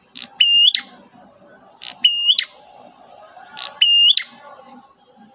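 Prenjak merah calling: the same sharp, high phrase three times, about two seconds apart. Each phrase is a short steady whistle ending in a quick upslur.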